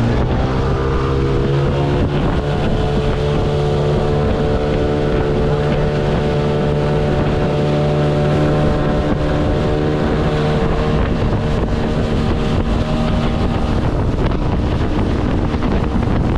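Small motorboat's engine running under way, its pitch rising in the first couple of seconds as the boat speeds up and then holding steady.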